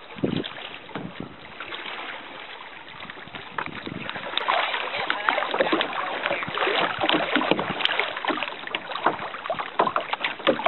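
Choppy lake water slapping and splashing against a kayak's hull as it moves along, with a low knock just after the start. The splashing grows louder and busier about four seconds in.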